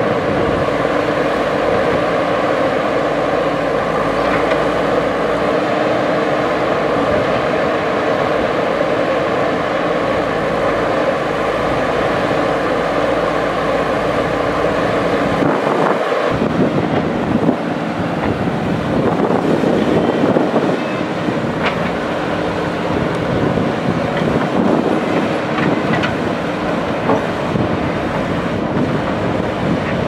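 JCB backhoe loader's diesel engine running as the machine works, a steady mechanical drone whose note shifts about halfway through, with a few light clanks later on.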